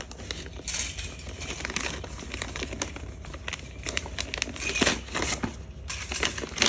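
Gift wrapping paper crinkling and tearing in irregular rustles as a present is unwrapped.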